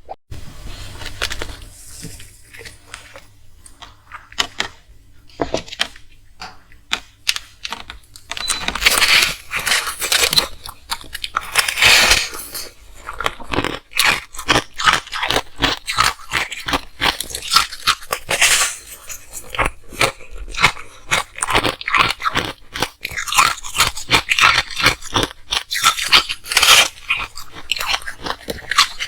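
Ice being bitten and chewed close to the microphone: a long run of crisp, irregular crunches, fainter for the first several seconds and louder from about eight seconds in.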